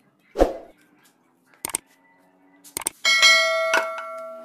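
Subscribe-button sound effect: a thump under a second in, a couple of sharp clicks, then a bell chime about three seconds in that rings with several clear tones and fades.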